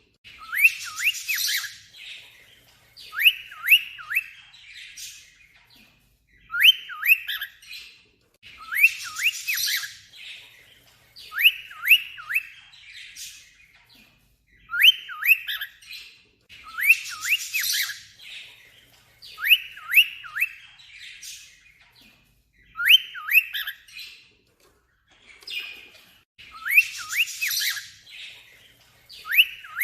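Cockatiel mimicking an alarm, over and over: groups of three or four quick rising whistle notes alternate with harsh, raspy squawks, the phrase recurring every couple of seconds.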